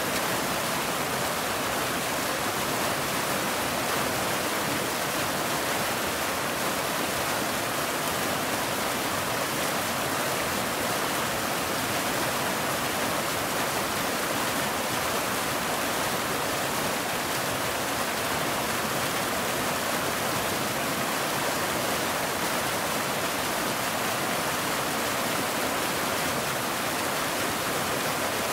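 Waterfall: water falling and splashing in a steady, unbroken rush that does not change.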